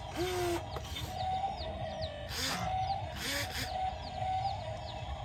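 Chickens clucking: a few short drawn hen calls over a run of high, short chirps about twice a second, with several brief bursts of rustling hiss.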